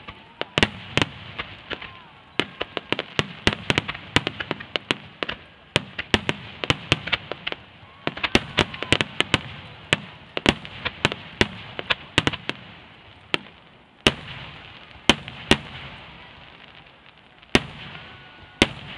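Large aerial firework shells bursting in quick succession: a dense string of sharp bangs and crackles, several a second, thinning to a few single bangs about three-quarters through before picking up again.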